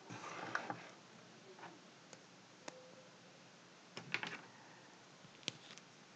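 Pen writing on paper, faint: a short run of scratching in the first second, then scattered light clicks and taps of the pen tip on the page, with a small cluster about four seconds in.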